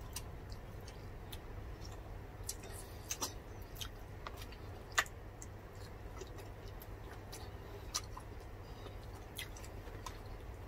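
Close-up eating sounds: scattered small clicks and smacks of chewing and of fingers picking at food on plates, with a sharper click about five seconds in and again near eight seconds, over a low steady hum.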